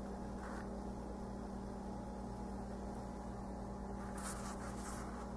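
Steady low hum with a faint hiss, and a soft rustle of a paper notebook page being turned about four seconds in.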